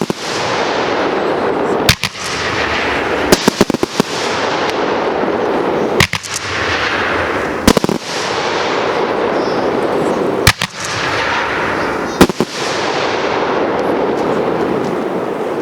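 A fireworks display going off: sharp bangs every couple of seconds, some in quick clusters, over a continuous loud rush of noise.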